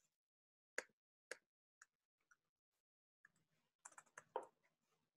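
Faint computer keyboard keystrokes as a name is typed: a few single taps about half a second apart, then a quicker run of taps near the end.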